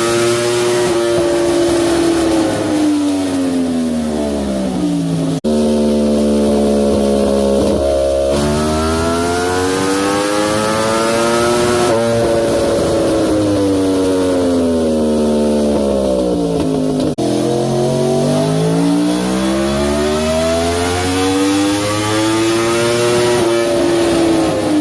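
2017 Yamaha R1 crossplane inline-four running through an aftermarket slip-on exhaust on a dyno roller. Engine speed rises and falls in long, smooth sweeps lasting several seconds each, with a brief cut in the sound about five seconds in and again about seventeen seconds in.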